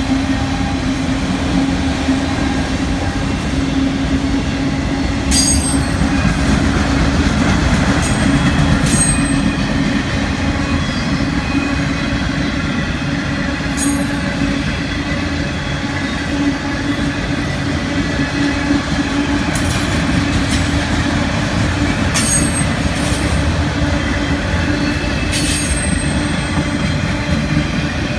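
Freight train of autorack cars rolling past close by at speed: a steady, loud rumble and rush of steel wheels on rail. Brief high-pitched wheel squeals cut in several times.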